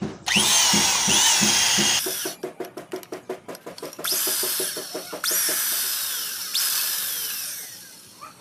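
Electric hand drill boring out the stripped oil drain-plug threads in an engine casing with a 12.5 mm bit. It runs in several short bursts with squeals of the bit cutting metal, the last burst fading out near the end.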